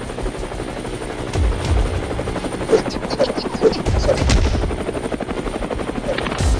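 Helicopter rotor chopping steadily, with a few short high blips about three to four seconds in.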